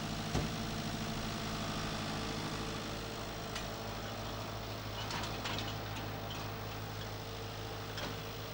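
Tractor engine running steadily at idle, with a short thump about half a second in and a few light clicks later on.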